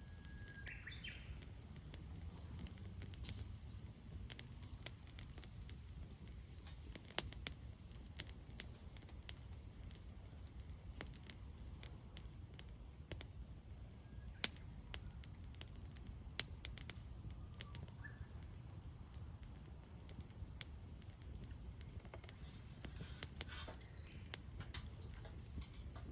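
Wood fire crackling, with irregular sharp pops over a low steady rumble of burning.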